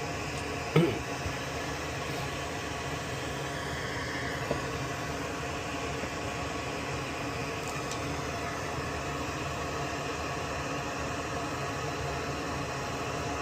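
A small electric fan on the workbench runs with a steady whirring hiss, and a sharp tap of a tool sounds about a second in.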